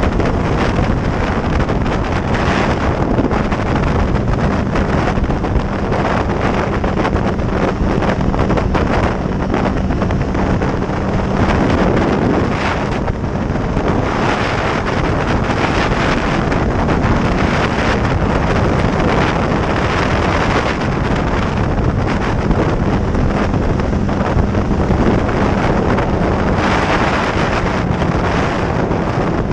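Heavy wind buffeting the microphone of a camera on a motorcycle at road speed, with the motorcycle's engine humming at a steady pitch underneath. The engine note breaks off about twelve seconds in and comes back in the second half.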